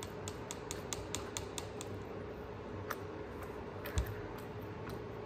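Crunchy chewing of the floured, pan-fried crust of dove breast: a quick run of sharp little crunches, then a few scattered ones, with a soft thump about four seconds in.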